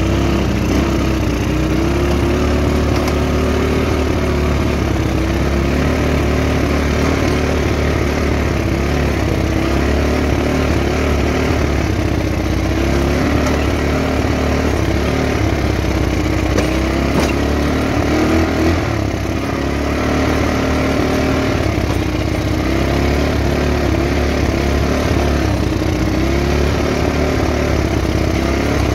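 Small vehicle engine running while driving along a dirt road. It holds moderate revs, with its pitch rising and dipping a little as the throttle changes.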